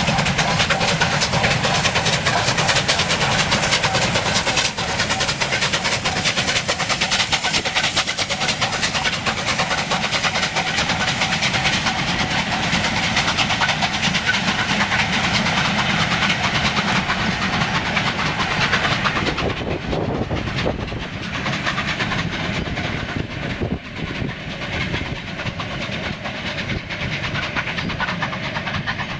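Air-smoothed Southern Railway Bulleted Pacific steam locomotive passing with a fast, even exhaust beat, hauling a train of goods wagons whose wheels clatter over the rail joints. About two-thirds of the way through, the sound turns duller and a little quieter as the train draws away.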